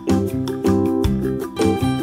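Background music led by a plucked string instrument, notes struck at a steady beat.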